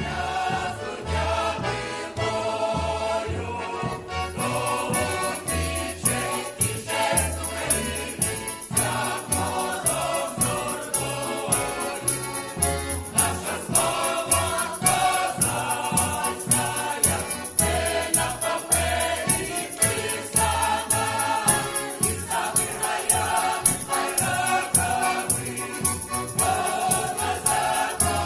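Choir singing a Ukrainian folk song over an accompaniment with a pulsing bass. From about four seconds in, a steady jingling percussion beat joins.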